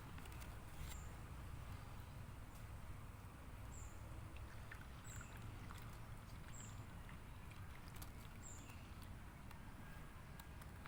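Faint steady background rumble, with five brief high chirps spread through it and a few soft clicks.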